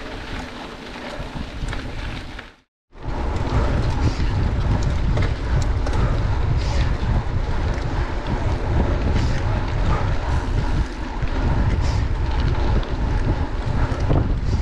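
Wind buffeting the microphone of a mountain bike riding at speed, a loud low rumble mixed with the rolling noise of the tyres. It is quieter for the first couple of seconds, drops out for a moment about three seconds in, and comes back louder.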